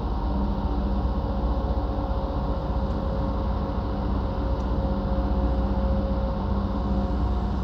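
Low, steady engine drone of a large container ship under way, a deep rumble with several constant hum tones over it.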